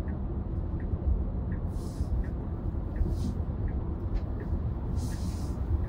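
Steady road and tyre rumble inside a moving Tesla's cabin, with the turn signal ticking faintly about every 0.7 seconds. Two brief hisses come about two and five seconds in.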